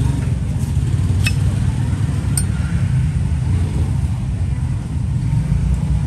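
Steady low background rumble, with two short sharp clicks about one and two and a half seconds in.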